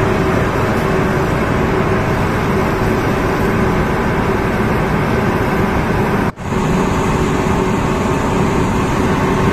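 Steady drone of a sand barge's unloading machinery running, with a steady hum over a dense rumble. The sound cuts out for an instant about six seconds in.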